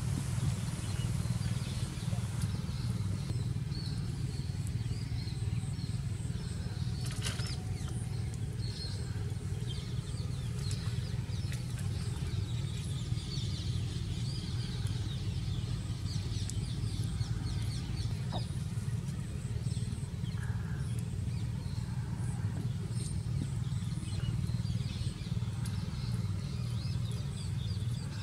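A steady low hum, like a motor or engine running, with scattered faint high chirps like birds, and a single sharp click about seven seconds in.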